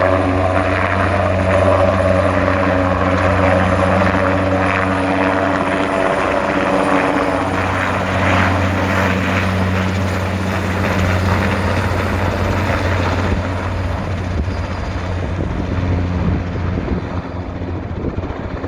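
Firefighting helicopter running steadily, a constant drone of rotor and turbine that eases slightly near the end.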